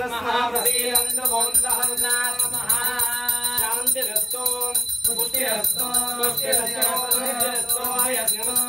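Devotional chanting with a small hand bell rung continuously from about half a second in.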